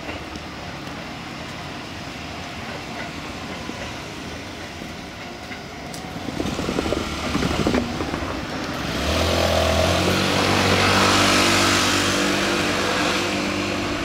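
JR E217-series electric commuter train rolling away along the track, with a few sharp clicks about seven seconds in. From about nine seconds a road vehicle's engine runs close by and becomes the loudest sound.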